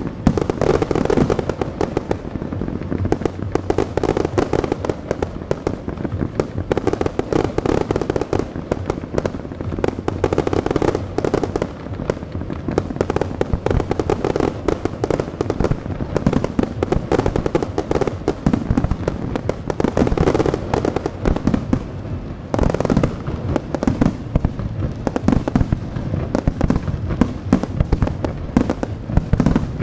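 Underwater fireworks bursting at a pond's surface together with small aerial shells: a dense, unbroken barrage of bangs and crackling.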